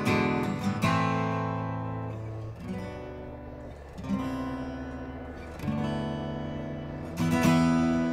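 Solo acoustic guitar improvisation. A quick run of strums opens it, then single chords are struck and left to ring and fade, with a louder strum near the end.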